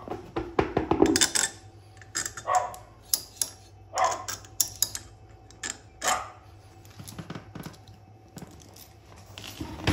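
A dog barking in short calls every second or two, mostly in the first six seconds, with small metallic clinks of go-kart hub parts and hand tools being handled.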